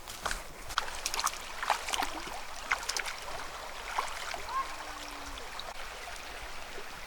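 Light water splashing and trickling, with many scattered short clicks.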